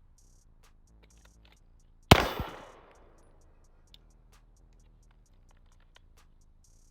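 A single 9mm pistol shot from a Glock 19, one loud report about two seconds in that rings off over roughly a second, over background music with a light ticking beat.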